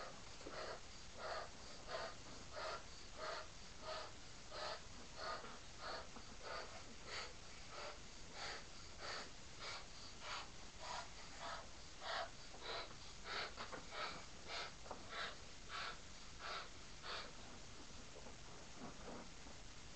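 Quick, even puffs of air, about one and a half a second, pushed into a large latex balloon to inflate it; the puffs stop near the end.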